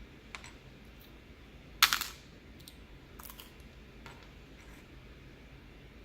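Small plastic clicks from handling Halo True mechanical keyboard switches in a switch opener, with a loud clatter of several quick clicks just under two seconds in and a few lighter clicks after.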